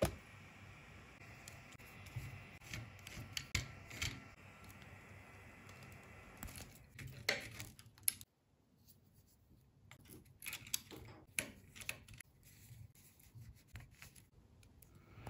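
Small clicks, scrapes and rubs of plastic fan parts and a screwdriver being handled on a 3D printer's hotend as its cooling fan is swapped and screwed in. A faint steady hum underneath stops suddenly about eight seconds in.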